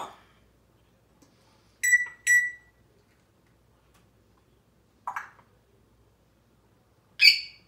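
African grey parrot calling: two short, clear, steady-pitched beep-like whistles about two seconds in, a brief rougher call a little past halfway, and a louder whistled call near the end.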